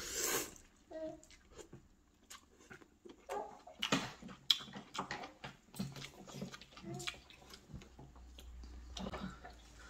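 Slurping ramen noodles and chewing, close to the microphone, with scattered light clicks. There is a loud slurp at the very start and further short bursts through the rest.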